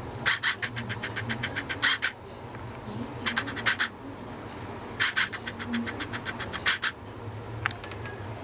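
Three quick runs of small sharp clicks and scratches from a sun conure working food in its beak, with one lone click near the end.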